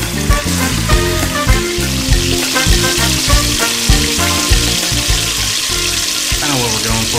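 Beef chuck roast and short rib sizzling as they sear in the stainless inner pot of an Instant Pot, a steady high hiss that grows stronger a couple of seconds in. Background music with a steady beat plays over it.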